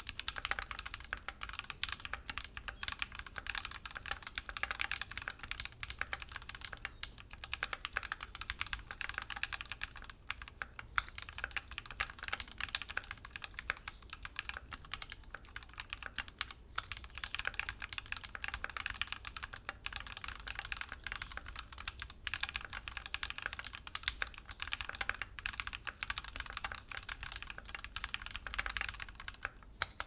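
Continuous fast typing on a stock Keychron Q4 60% mechanical keyboard with linear Gateron G Pro Red switches and double-shot PBT OSA keycaps: a dense, steady stream of key clacks.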